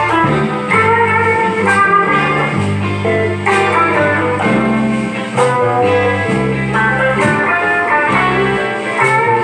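Electric guitar playing picked lead lines over held low bass notes that change every second or so.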